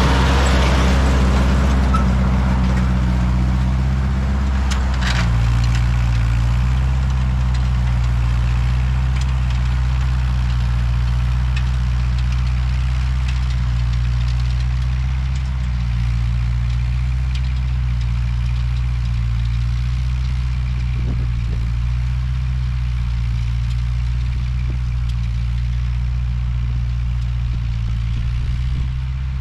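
Ford 8N tractor's four-cylinder engine running at a steady speed.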